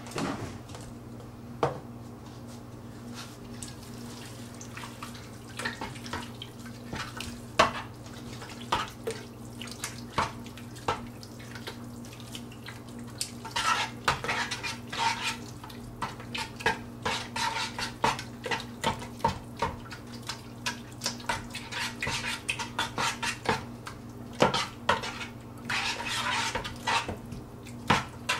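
Hands mixing wet ground raw meat in a deep stainless steel stockpot, with knocks and clicks against the metal pot. The knocks come only now and then at first, and the mixing becomes busy and continuous from about halfway through.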